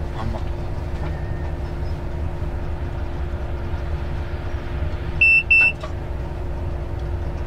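Inside a moving locomotive's cab: a steady low rumble of the running train with a constant hum. A little over five seconds in come two short, high-pitched electronic beeps in quick succession, the loudest sound here, typical of a cab warning or signalling device.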